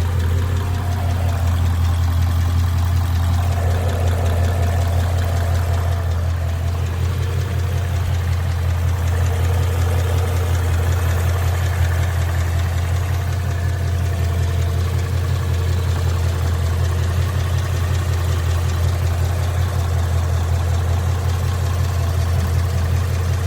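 2011 Ford Mustang GT's 5.0-litre V8 idling steadily, with a knock in the engine that the owner suspects may be rod knock.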